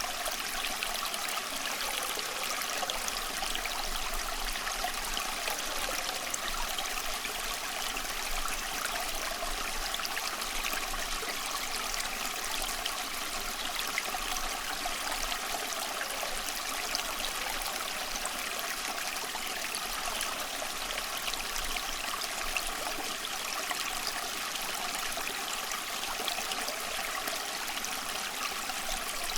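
Water running steadily in a stream, an even rushing and trickling without pause.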